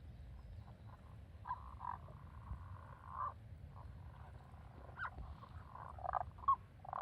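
Frogs croaking in short, irregularly spaced calls, some drawn out for about a second, over a steady low rumble; the uploader takes them for Tago's brown frogs.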